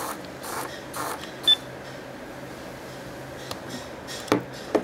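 A single short high-pitched electronic beep from the ToolkitRC ST8 servo tester about one and a half seconds in, then two sharp clicks near the end as the tester's dial is handled.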